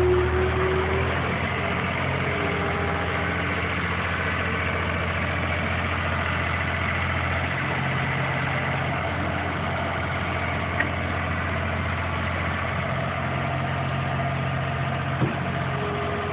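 Diesel engine of a 2007 New Holland L180 skid steer idling steadily, easing down slightly about a second in. There are two brief light clicks later on.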